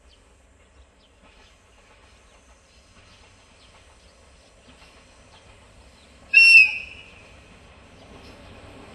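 A DE10 diesel locomotive sounds one short, high-pitched whistle blast about six seconds in as it approaches. Its faint engine and wheel rumble grows louder near the end.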